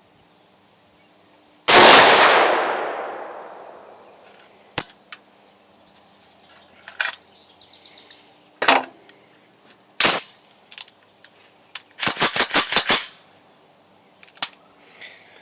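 A single shot from a Head Down HD15 AR-15-style rifle about two seconds in, echoing away over a couple of seconds. Lighter clicks and knocks follow, with a quick rattling run of knocks near the end.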